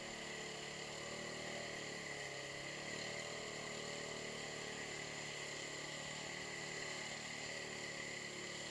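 Arctic Cat 700 ATV's single-cylinder engine running under load as it churns through a mud hole, steady with its pitch rising and falling gently as the throttle shifts.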